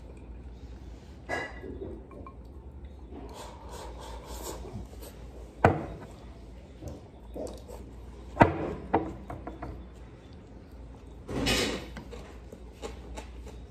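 Eating sounds: wooden chopsticks tapping and scraping in a porcelain rice bowl of katsudon, with small clicks throughout. Two sharp knocks stand out, one about halfway through and a louder one a few seconds later, and there is a short noisy rush near the end.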